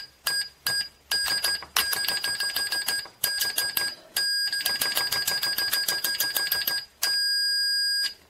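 Fluke multimeter's continuity beeper sounding as the test probes are tapped together: a few spaced beeps, then fast runs of beeps, then one steady beep for about a second near the end while the probes are held together. Each beep starts and stops instantly with the contact, the sign of an ultra-fast continuity test with no delay in switching on or off.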